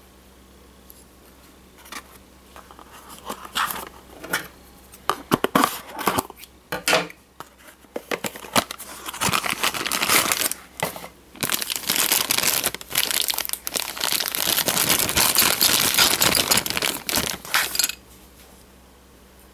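A model airliner being unboxed by hand: a cardboard box opened and its packaging crinkling and tearing, with scattered clicks and knocks. The sound grows busier from about halfway and stops shortly before the end.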